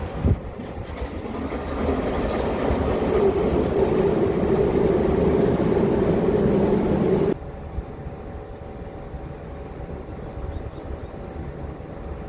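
A train passing close by, its running noise building over the first couple of seconds into a loud steady rush with a hum. The sound cuts off suddenly about seven seconds in, leaving a quieter steady background hum.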